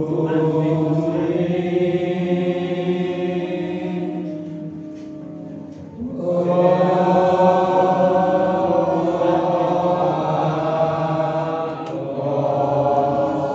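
Sufi devotional chanting for a whirling dervish dance: voices singing long held notes together. It dies away around five seconds in and comes back strongly just after six seconds.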